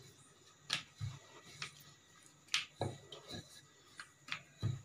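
Wooden rolling pin rolling out poori dough on a rolling board, with about seven light, irregular knocks and taps as the pin and the dough are set down and turned on the board.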